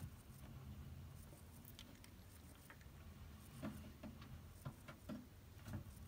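Near quiet room with a few faint, short taps and rustles, most of them in the second half.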